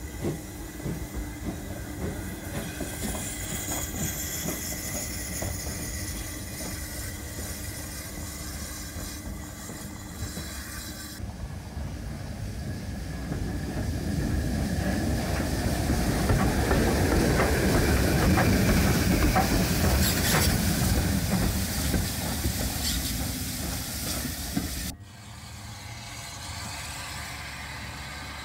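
0 gauge model tank locomotive running along the track, its wheels rattling and clicking over the rail joints over a steady hum. The running grows louder toward the middle, and the sound changes abruptly twice.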